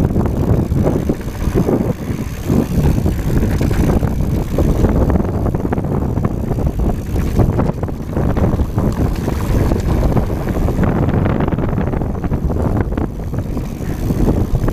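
Wind buffeting the action camera's microphone over the rumble of mountain bike tyres on a rough dirt singletrack, with steady small rattles and knocks from the bike.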